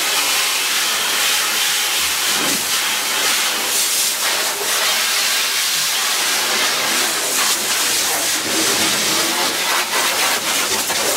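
Water jetting from a hose spray nozzle, a steady loud hiss as it rinses out the inside of an emptied metal outboard test tank.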